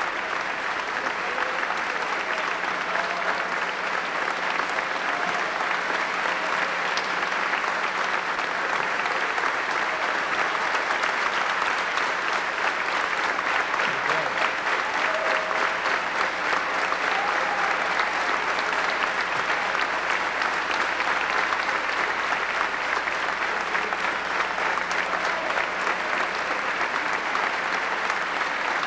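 A large audience applauding steadily, a dense, even clapping that holds without a break.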